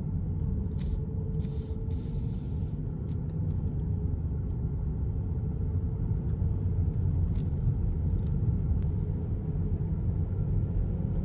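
Steady low rumble of a car driving along a wet road, heard from inside the cabin. A few short hisses come between about one and three seconds in.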